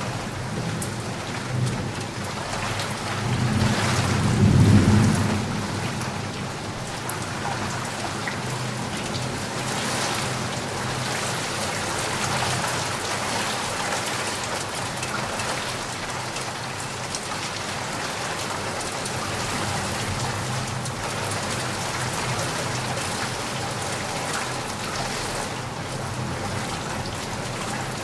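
Steady rain falling, with a low roll of thunder swelling and fading about three to five seconds in.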